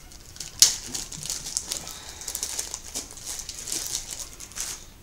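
Packaging rustling and crinkling as bottles are handled and taken out of a parcel, with one sharp knock about half a second in.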